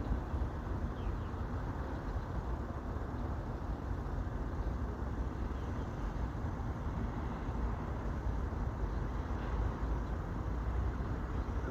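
Outdoor background noise: a steady low rumble with a few faint, short high chirps. No siren is sounding.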